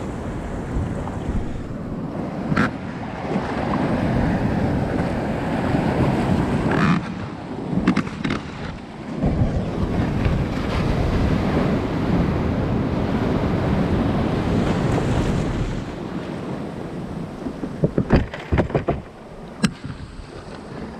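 Ocean surf washing in, with wind buffeting the microphone. A few sharp knocks are scattered through it, with a cluster of them near the end.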